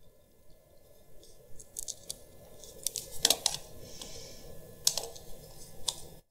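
Scattered light clicks and small rattles of a jumper wire being handled and pushed onto a parallel port pin, with sharper clicks about three seconds in and again near five seconds.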